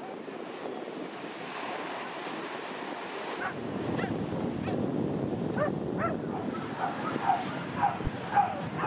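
Surf washing on a shingle beach, with wind buffeting the microphone. From about halfway, a dog yaps over and over, the yaps coming quickly near the end.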